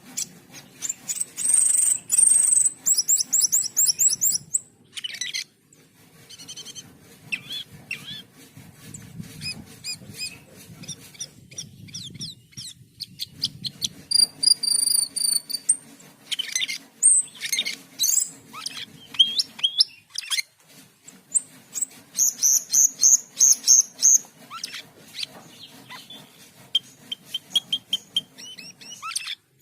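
A cucak keling, the Asian glossy starling, singing a fast, varied song of sharp chirps, clicks, rapid trills and high whistles, the rapid-fire 'tembakan' calls that keepers prize. It pauses briefly twice. A faint steady low hum runs underneath.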